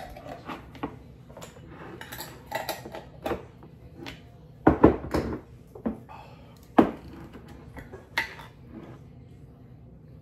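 Dishes and cutlery clattering: scattered clinks and knocks, the loudest a quick cluster about halfway through.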